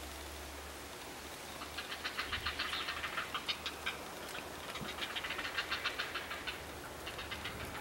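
Grey heron chicks begging at the nest while a parent feeds them: rapid ticking, chattering calls that come in several runs of a second or two.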